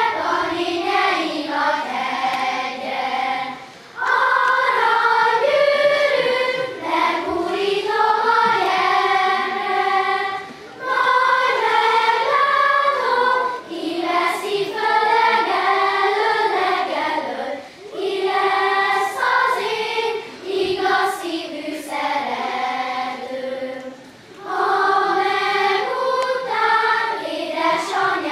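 Children's choir singing a medley of Hungarian folk songs from Nógrád, phrase after phrase of about three to four seconds with short breaks for breath between them.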